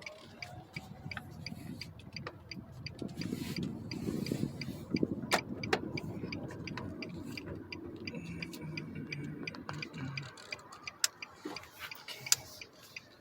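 Car turn-signal indicator clicking steadily inside the cabin, with low engine and road rumble from about two seconds in that eases off near ten seconds. A few sharper knocks stand out.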